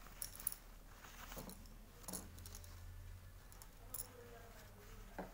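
Denim being handled and set under the presser foot of a sewing machine: soft rustling and a few scattered light clicks.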